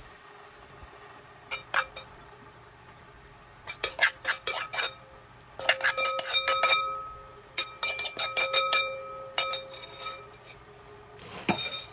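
Metal spoon scraping and clinking against the inside of an aluminium bowl as food is scooped out onto a plate, in several quick bursts of rapid clinks with a ringing note, separated by short pauses.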